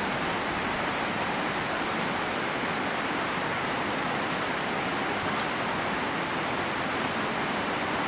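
Steady rushing noise of flowing river water, even and unbroken.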